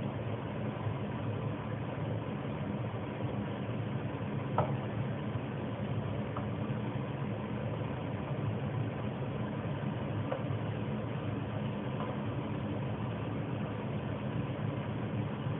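Steady low machine hum, with a few faint light clinks scattered through it.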